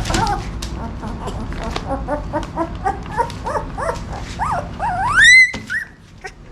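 Siberian husky puppy crying: a run of short rising-and-falling whimpers that grow higher and louder, ending in one loud, drawn-out squeal about five seconds in.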